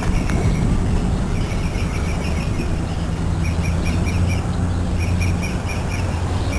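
Birds chirping in quick, evenly repeated high notes over a steady low hum.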